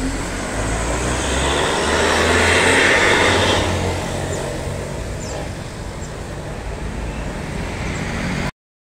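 Medium tour bus with a stainless-steel 'jetbus' (SUOS) aftermarket exhaust accelerating away: a low engine rumble under a jet-like rushing hiss that is loudest about two to three seconds in, then fades as the bus drives off, until the sound cuts off abruptly near the end.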